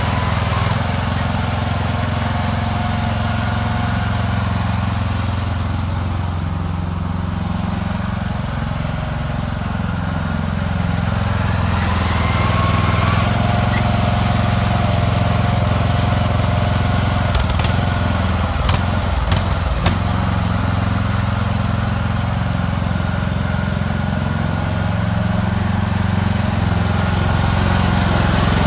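Riding lawn mower's engine running steadily while the tractor pushes snow with a wooden plank blade mounted on its front. It grows a little louder about twelve seconds in, and a few sharp clicks come around two-thirds of the way through.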